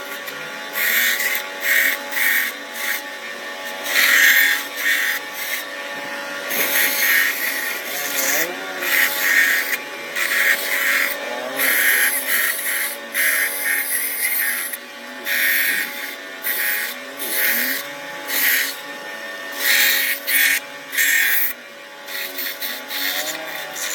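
Mini bandsaw running with a steady motor hum, its blade cutting wood in short, irregular bursts of rasping noise.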